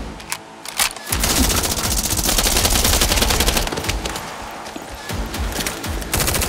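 Rapid automatic gunfire in a long burst starting about a second in, easing off, then a second burst near the end, over background music.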